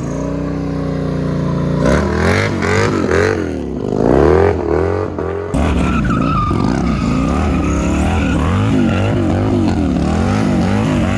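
Feuling W3 2.5-litre three-cylinder motorcycle engine revving hard while the rear tyre spins in a smoky burnout. The revs swing up and down irregularly at first. From about halfway in they rise and fall in an even rhythm about twice a second.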